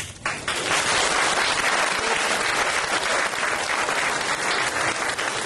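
Audience applause, a dense steady clapping that starts a moment in.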